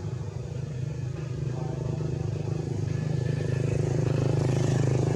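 A vehicle engine running steadily, growing louder over the first four seconds or so.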